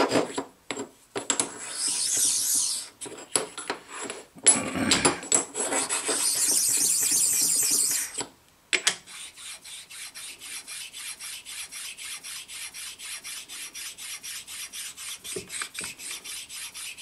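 A small precision ground stone rubbed over the cast-iron sliding surfaces of an Atlas 10F lathe's tailstock base, stoning down rough spots so the stiff tailstock will slide freely. The first half holds a few long, loud, hissing strokes. From about halfway it changes to quick, short, quieter strokes, about five a second.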